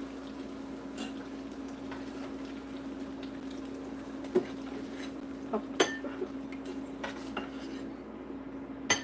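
Metal spatula and fork clinking and scraping against a small stainless saucepan as battered Oreos are turned in hot frying oil. A few sharp clinks come spread through, the loudest near the end, over a steady low hum.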